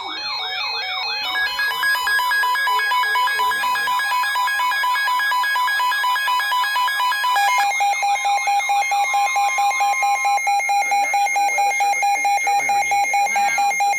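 Several emergency alert receivers sounding their warning tones at once. Warbling alarm tones run over steady alert tones, and about halfway through it turns into a fast, even pulsing beep. These tones announce a new severe thunderstorm warning.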